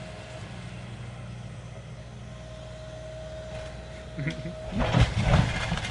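Demolition machine's engine running steadily at a low hum, with a thin steady whine for a couple of seconds in the middle. From just under five seconds in, loud irregular crunching and crashing of the house's wreckage being crushed.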